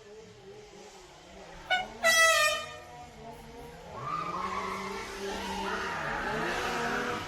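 A short, high horn toot about two seconds in, then a motor running steadily.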